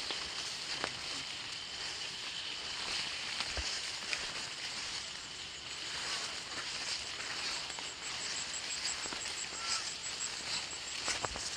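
Jute plants rustling and swishing against legs and the camera as people wade on foot through a dense jute field, with scattered brushing clicks. Underneath is a steady high-pitched hiss, and about halfway a fast, even high ticking comes in.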